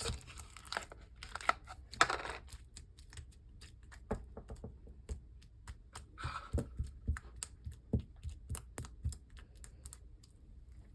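Slime being pressed and worked by hand, giving off irregular small clicks and pops several times a second, with a couple of short squishes.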